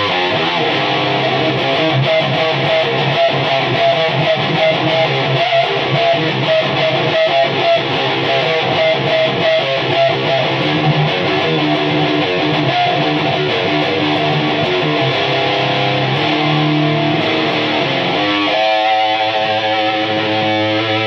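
Distorted electric guitar played through a homemade high-gain valve amplifier built with 1930s AF7 preamp and AL4 output tubes. It plays a heavy riff of short, chopped chords, then longer ringing chords near the end.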